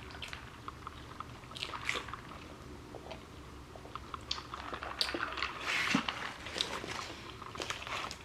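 Close-up mouth sounds of someone biting and chewing food, with wet clicks and crisp crunches that grow busier from about five seconds in.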